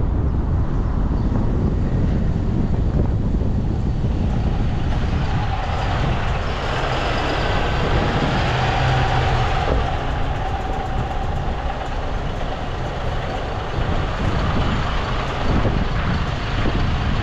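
A bus driving along the road, its running and tyre noise under heavy wind rumble on the microphone. A steady tone with brighter noise above it swells for a few seconds in the middle.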